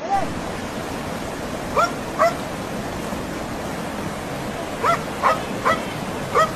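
A dog stranded in a flooded river yelping and whimpering in distress: about seven short, high yelps, one at the start, two about two seconds in and four more near the end. Under them runs the steady rush of fast floodwater.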